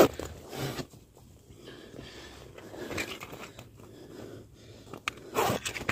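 Rustling and crinkling handling noises of clothing and tent fabric as someone moves about inside a small tent searching for matches, with a sharp tick about five seconds in.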